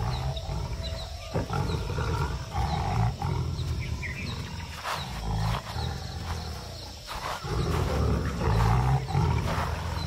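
Bengal tigers growling low in several bouts as cubs greet an adult male.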